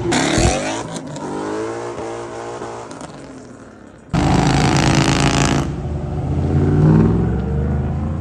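Car engines revving and accelerating. One engine rises in pitch and fades away, then about four seconds in a loud engine comes in abruptly and revs up again near the end.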